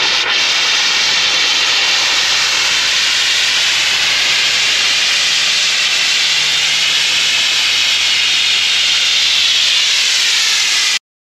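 Compressed air blasting out of open PVC sprinkler risers during a winterizing blowout. It makes a loud, steady hiss as it drives the last water out of the lines as spray and mist. The sound cuts off suddenly near the end.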